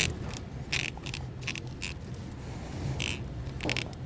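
Rubber vacuum hose being pushed and twisted by hand onto a plastic tee fitting: a string of short scrapes and rubbing sounds, about eight in four seconds, over a low steady hum.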